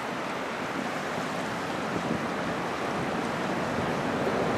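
Wind buffeting the microphone over choppy lake water splashing and lapping: a steady rushing noise that grows slightly louder.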